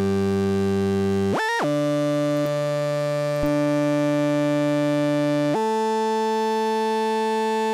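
Arturia Mini V software synthesizer, a Minimoog emulation, playing a sustained monophonic lead built from sawtooth and triangle oscillators. Notes are held for seconds at a time, with a quick portamento glide up and back between notes about a second and a half in. About five and a half seconds in, the tone steps to a new pitch and the low end drops away.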